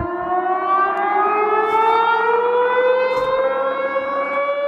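Civil defence warning siren wailing, its pitch rising slowly and steadily.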